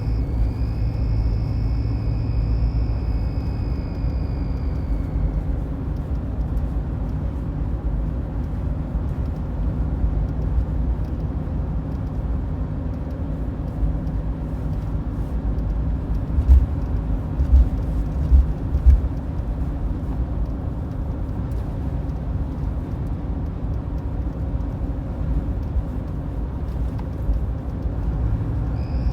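Mitsubishi Pajero IV 3.2-litre diesel on the move, with a steady low rumble. Over it a high whistle from under the bonnet sounds for about the first five seconds, then dips slightly in pitch and fades. The whistle is heard only when the vehicle is moving, and its cause is unknown. A few low thumps come in the middle.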